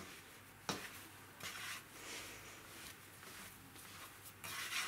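Dough being kneaded by hand on a floured worktop: faint soft rubbing and pressing strokes, with a light knock under a second in and a louder swish near the end.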